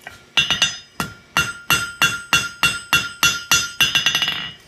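Blacksmith's hammer striking hot iron bar stock on an anvil, a steady run of blows about three a second, each leaving a bright metallic ring.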